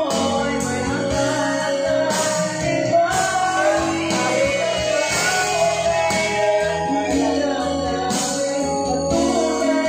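A song playing, with a voice singing over instrumental backing.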